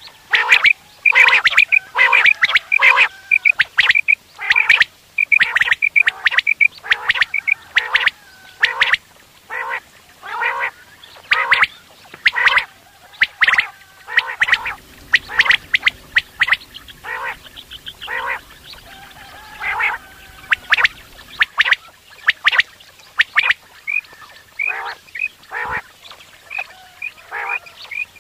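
Quail calling over and over in fast runs of short, harsh notes, with quicker series of higher, sharper notes early on and again near the end.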